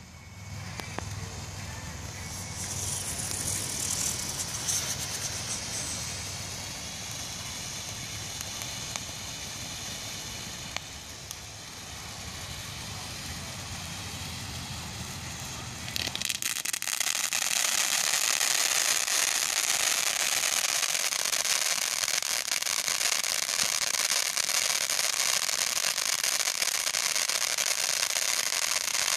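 A 500-gram firework fountain spraying with a steady hiss. About sixteen seconds in it turns louder and brighter, with dense crackling.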